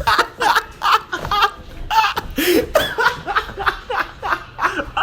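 A person laughing hard in quick, repeated bursts, about three a second.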